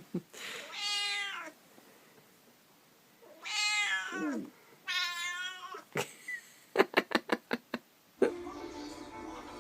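A house cat meowing three times in long, drawn-out calls. Then comes a quick run of about eight sharp clicks, and music starts near the end.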